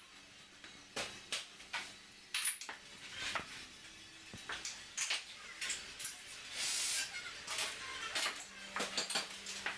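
Café room sounds: scattered clinks and knocks of crockery and cutlery, with a brief hiss about seven seconds in.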